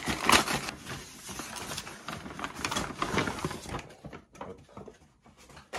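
Kraft-paper mailing envelope being torn open and rustled as it is pulled apart, then quieter handling with a few light clicks and a sharp knock near the end.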